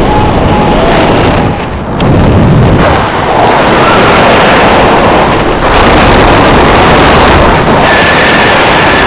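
Wind rushing over a camera microphone on a paraglider in flight, loud and steady, with a brief dip and a sharp click about two seconds in.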